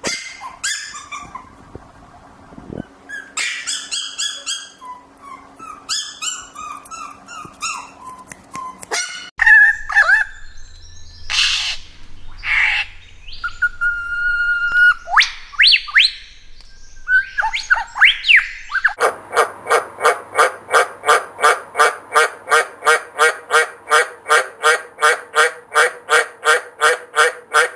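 A run of different animal calls one after another: scattered chirping calls, then whistled calls that glide in pitch, then one animal calling over and over, about two or three calls a second.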